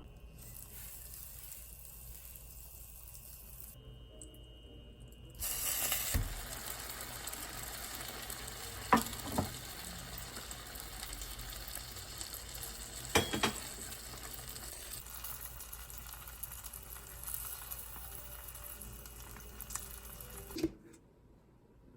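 French toast frying in butter in a pan: a steady sizzle starts suddenly a few seconds in and cuts off shortly before the end. Two pairs of sharp knocks sound partway through.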